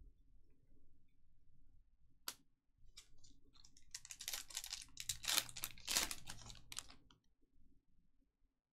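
A sharp click, then several seconds of dense crackling and clicking as trading cards and their packaging are handled at the table.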